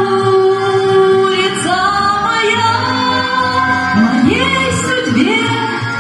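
A woman singing a Russian song into a microphone over instrumental accompaniment, in phrases of long held notes.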